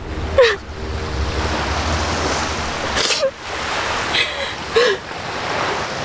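Ocean surf washing steadily on a beach, broken about three times by a woman's short sobbing gasps.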